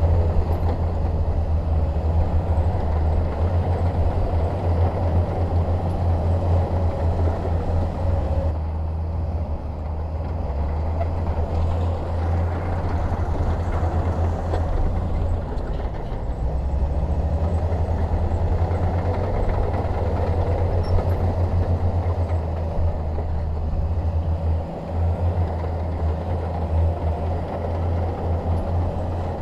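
Bulldozer's diesel engine running steadily under load, a continuous low rumble with mechanical noise over it.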